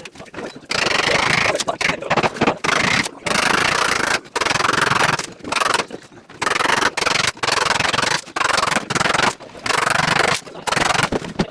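Sped-up time-lapse audio of carpentry work: choppy bursts of rubbing and scraping noise that start and cut off abruptly, about one a second.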